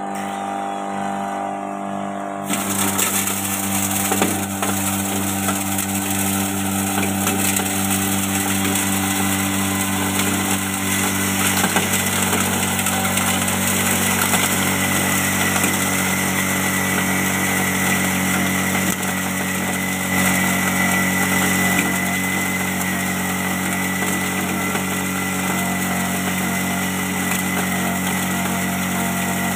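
Small electric-motor-driven grinding machine running steadily while rice husks are fed in and ground into bran. From about two and a half seconds in, a dense hissing grind is added to the motor hum and keeps going.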